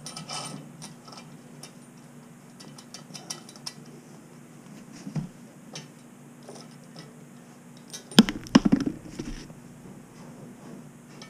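Light metallic clicks and clinks as a hand works the nuts and fittings at the outlet of a wall-hung porcelain urinal, with a louder clatter of knocks about eight seconds in.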